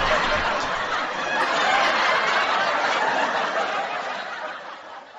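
Canned sitcom laugh track: a studio audience laughing together, fading out near the end.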